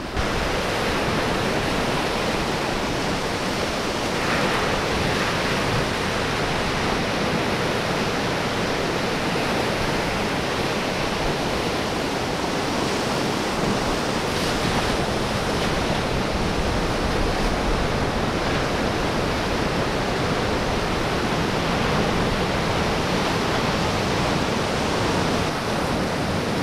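Surf breaking on a rocky reef, a steady, even rush of ocean wash with no distinct single waves standing out.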